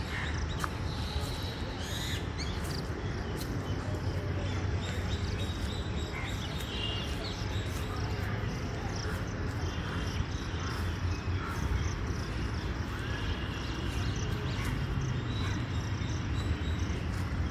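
Outdoor ambience: scattered bird chirps over a steady low rumble, with faint ticks here and there.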